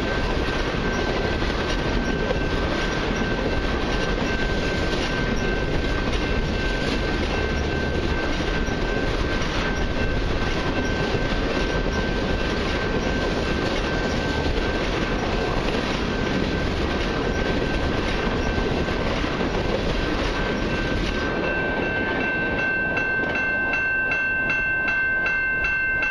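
Empty crude-oil tank cars rolling past, wheels clicking over the rail joints in a steady rumble. The rumble drops off about 21 seconds in as the last car passes, leaving a railroad crossing bell ringing steadily.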